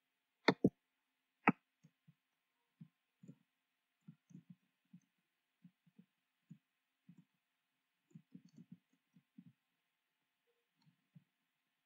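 Computer keyboard typing: soft, irregular keystrokes, with three sharper clicks in the first second and a half.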